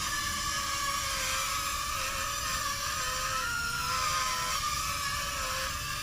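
Small V66 toy quadcopter drone in flight, its propellers whining steadily with a pitch that wavers up and down as the motors adjust. Wind rumbles on the microphone underneath.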